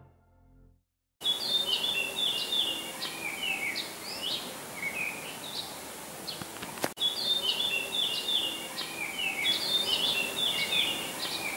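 Songbird singing in bursts of quick chirping phrases that rise and fall, repeated over a steady background hiss. Before it, the tail of some music fades out, and a brief click cuts the sound about seven seconds in.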